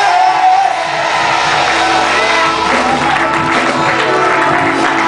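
Church music of sustained held chords, with a congregation shouting and cheering over it.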